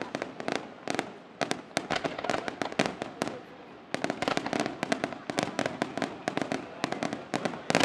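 Aerial fireworks display: a rapid barrage of shell bursts and sharp reports, many a second, easing briefly about three seconds in and picking up again densely about four seconds in.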